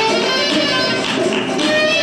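Live flamenco music from a small ensemble of cello, guitar and cajón: held bowed and plucked notes over steady cajón strokes, picked up by a camcorder's microphone.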